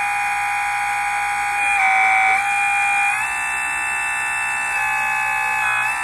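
Miniature electric hydraulic pump for R/C construction models running with a steady high whine. Its tone and loudness shift in steps every second or two as the cylinders move and the load changes.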